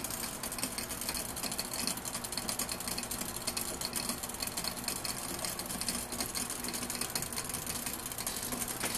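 Water with fir leaves and twigs boiling in the glass flask of a tabletop steam distiller: a steady, rapid crackle of bubbles as the boil comes up.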